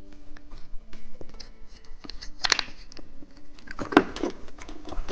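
Background music with held notes, broken about two and a half and four seconds in by short bursts of crackling and clicking, the second one louder.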